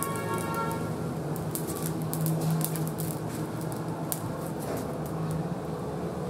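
Whole boxfish grilling on a wire rack over glowing charcoal, with scattered sharp crackles through a steady low hum.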